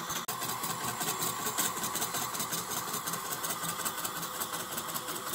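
Stepper motors of a homemade CNC laser engraver driving the laser head through a grayscale raster: a continuous buzzing whir broken into rapid, even pulses as the head sweeps back and forth. It drops out for an instant just after the start.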